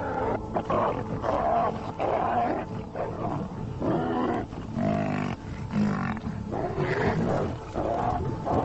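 Fight between a lion and a herd of African buffalo: loud growls, roars and bellows, one call after another about once a second.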